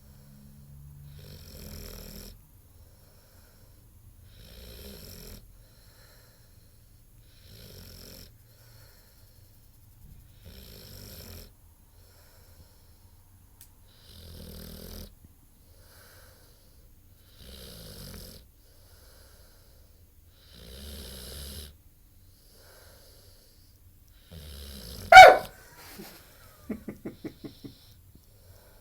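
Eight-month-old Ultimate Mastiff snoring in its sleep, one breathy snore about every three seconds. Near the end comes a single sudden, very loud sharp sound, then a quick run of about six short pulses.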